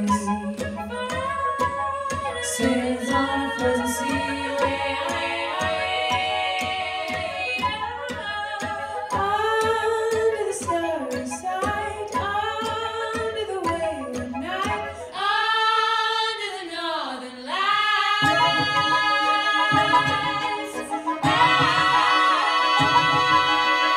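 Three women singing live in close harmony, their lines overlapping and gliding in pitch over a steady low pulse. About three seconds before the end, a fuller layer of sustained instrumental notes joins in.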